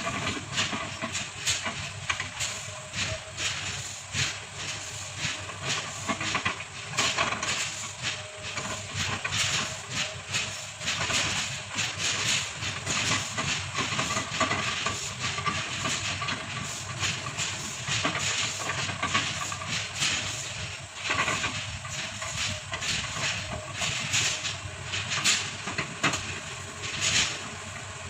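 Kobelco hydraulic excavator running under load with a steady whine, chopping oil palm trunks into chips: a continuous run of cracking and crunching wood.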